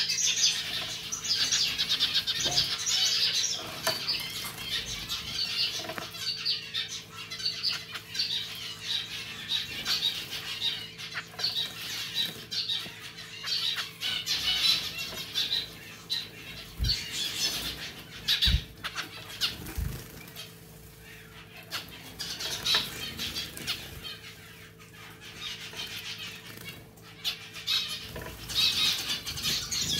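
A zebra finch bathing, flicking its wings to splash water in the bowl of a pet water fountain. The splashing comes in bouts of a few seconds with quieter spells between.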